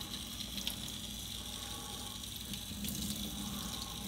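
Steady stream of water from a kitchen faucet's spray head pouring over a wet dog's coat and splashing into a stainless steel sink.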